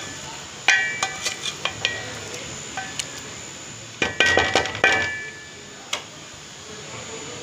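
A spoon clinking and scraping against a metal cooking pot while thick masala with liver pieces is stirred and mixed. The clinks come in a quick cluster about a second in and again between four and five seconds, with a few single knocks between.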